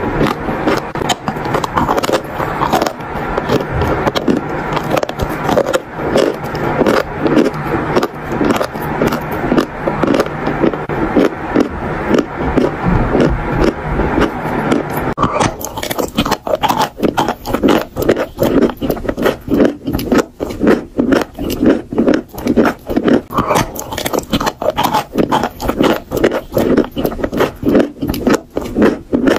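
Close-miked biting and crunching of dry chalk: a dense run of crackling crunches. About halfway through they become sparser and more evenly spaced, single chewing crunches.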